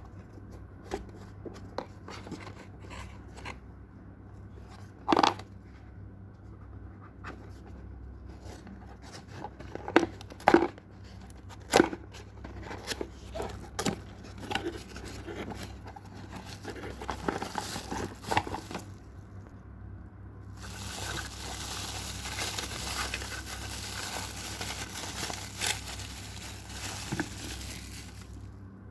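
Packaging and a plastic phone holder being handled: scattered clicks and knocks, then several seconds of crinkling plastic wrapping from about twenty seconds in.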